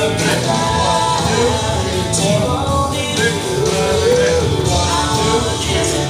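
Recorded song with a singer and full instrumental backing, playing steadily for the dancers.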